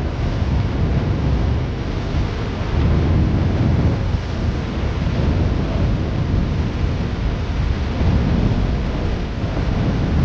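Wind buffeting the microphone: a loud, uneven low-pitched noise that swells and eases.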